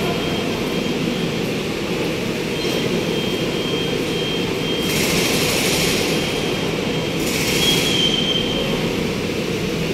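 Heavy overhead crane machinery running with a steady low rumble. A thin high squeal comes and goes through it and is strongest about eight seconds in, with bursts of hiss around five and seven seconds.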